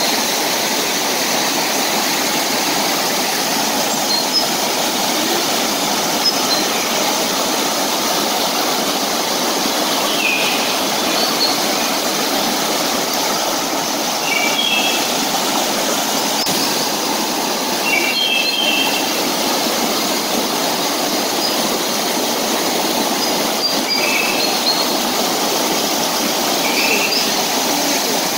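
A shallow river rushing over boulders in small cascades: a steady, even rush of water.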